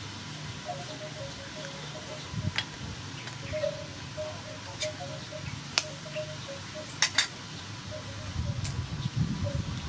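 Eggs tapped against the rim of a stainless steel mixing bowl to crack them: a handful of sharp clicks, the loudest two in quick succession about seven seconds in.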